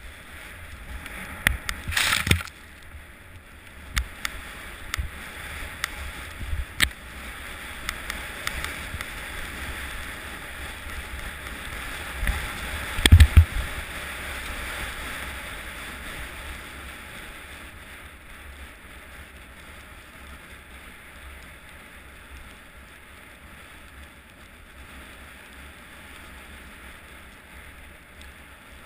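A jack jumper's ski sliding fast over snow, a steady rushing hiss with wind on the microphone. Sharp knocks and thumps come over bumps in the first half, loudest about two seconds in and about thirteen seconds in, and the hiss eases off in the second half.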